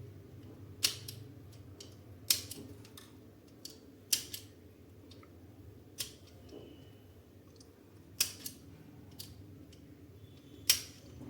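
Scissors cutting a hot-melt glue stick into small pieces: about six sharp snips, each a second and a half to two and a half apart.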